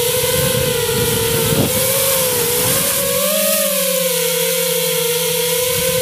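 FPV quadcopter's electric motors and propellers whining in flight, the pitch wavering up and down as the throttle changes.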